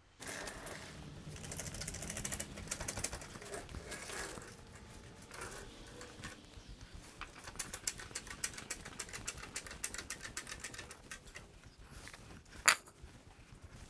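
Rapid light clicking and rattling from handling and tool work around the mower, with one sharp knock near the end.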